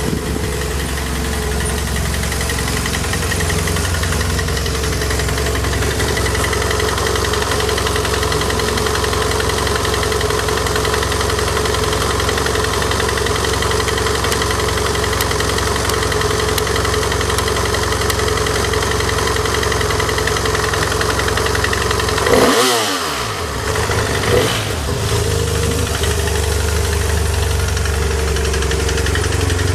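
BMW F800ST 798 cc parallel-twin engine idling steadily. About twenty-two seconds in it is switched off and winds down, and some two seconds later it is restarted on the electric starter, catching at once and settling back into a steady idle.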